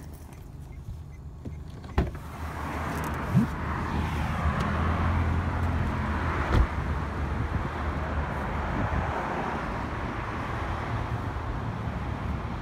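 A car door shuts with a thump about two seconds in, then steady road traffic noise.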